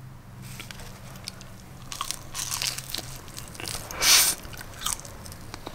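Biting into and chewing a homemade chicken quesadilla: tortilla crunching in irregular bites, with the loudest crunch about four seconds in.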